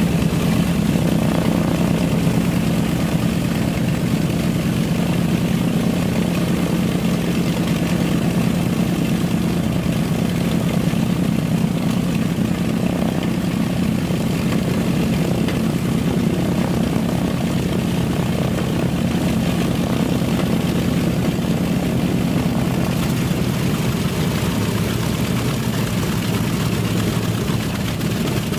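North American B-25 Mitchell bomber's Wright R-2600 radial engine running at idle after start-up, a steady, loud, low drone that changes slightly in tone near the end.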